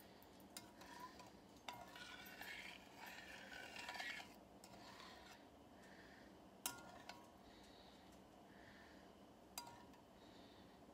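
Faint stirring of a pan of brown sugar, water and butter with a spoon: a couple of seconds of scraping, and a few sharp clinks of the spoon against the pan, the loudest about two-thirds of the way through.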